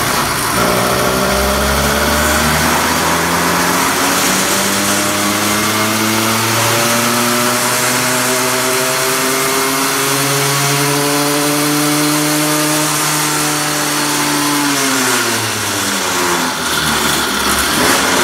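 Two-stroke motorized-bicycle engine doing a full pull on an inertia dyno: under load as it spins up the heavy flywheel, its pitch rises slowly and steadily for about fifteen seconds, then falls quickly as the pull ends.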